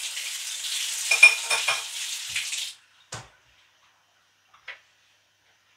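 Food sizzling in a pan, with a few sharp utensil strokes, cutting off suddenly after nearly three seconds. Then a single sharp clack and a faint tap.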